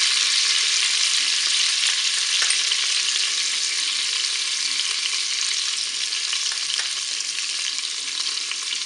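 Vinegar and honey sizzling and bubbling hard in the hot bowl of a Moulinex Cookeo multicooker on its browning setting, while a spoon stirs them. The dense crackling hiss slowly dies down.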